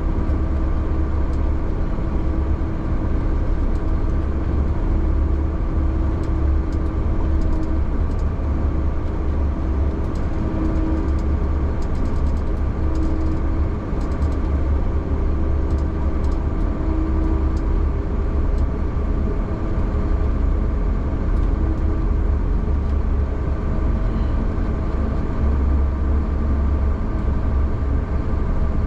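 Snowcat's diesel engine running steadily as the machine drives over a groomed ski slope, heard from inside the cab as a constant low drone with a steady hum.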